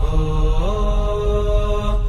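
Intro music of long held, chanted vocal notes that step up and down in pitch, over a deep low rumble.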